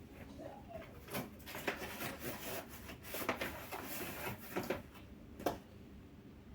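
Irregular small clicks, knocks and rustling as a newly unboxed item is handled and tried out, with one sharper click near the end.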